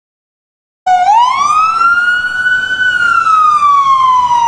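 Ambulance siren wailing, starting about a second in: one slow wail whose pitch climbs for about two seconds, then slowly falls.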